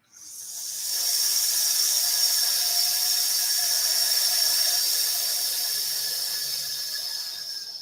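A person exhaling the lung sound of the Taoist Six Healing Sounds practice: one long, steady 'sssss' hiss through the teeth. It builds over the first second, holds for about seven seconds, and eases off near the end.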